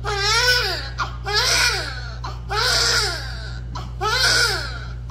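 Newborn baby crying just after birth: four wails of about a second each, every one rising then falling in pitch, coming one after another with short breaths between. A steady low hum runs underneath.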